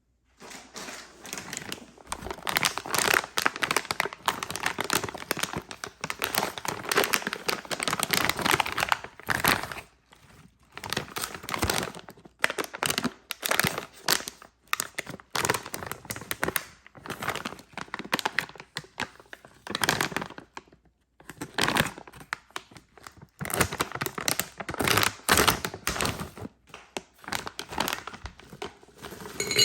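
Candy and chocolate wrappers crinkling and tearing as packages are opened by hand, in stretches of crackling with short pauses between.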